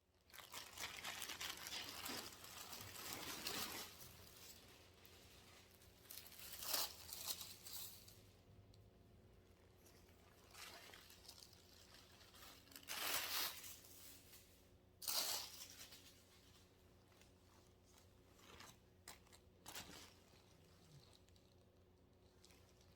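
Faint kitchen handling sounds: rustling and crinkling for the first few seconds, then a few short, sharp clicks and clatters spaced several seconds apart.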